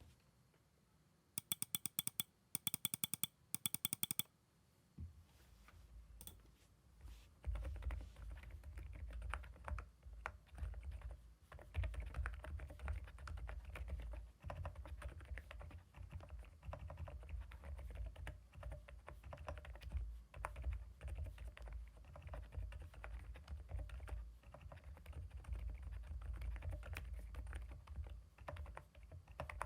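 Typing on a CIDOO ABM066 Alice-layout mechanical keyboard fitted with CIDOO Silent Blue linear switches: fast, continuous keystrokes with a deep thud, settling in a few seconds in. Before that come three short bursts of sharp, high-pitched ticking.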